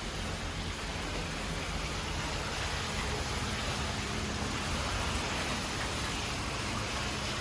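Steady rain falling, an even hiss with no distinct events, over a faint steady low hum.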